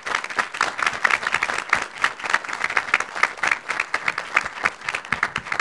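Audience applauding, many pairs of hands clapping in a dense, steady patter.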